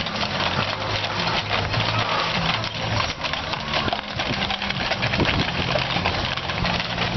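Hooves of a team of Clydesdale horses clip-clopping in a dense, irregular patter on pavement and cobblestones as they pull a heavy wagon, over the steady low hum of an idling engine.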